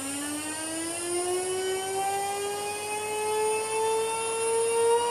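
KaVo Type 4015 brushless high-speed spindle, driven by a cheap RC car speed controller, whining as it is slowly sped up. The whine rises steadily in pitch and levels off near the end, as the spindle nears the top speed that its back EMF allows on the controller's 13-volt limit.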